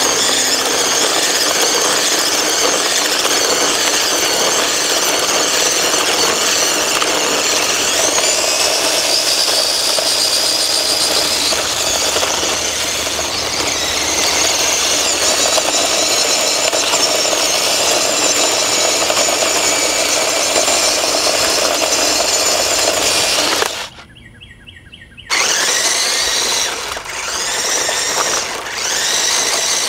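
Small electric drive motors and gears of a toy remote-control kart (Mario Kart 8 Anti-Gravity RC Racer) whining as it drives on concrete. The whine rises in pitch several times as it speeds up, with a short break about three-quarters of the way through.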